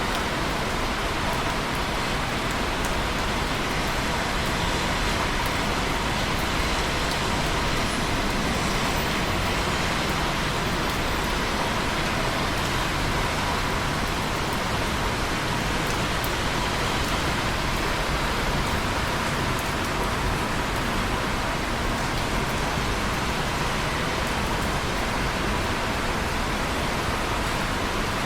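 Steady, even rain: a continuous hiss of falling rain with faint scattered drop ticks.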